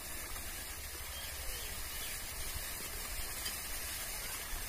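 Artesian well water forced up under its own pressure, spraying out in a fan from under a cap held over the pipe mouth: a steady hiss of spray.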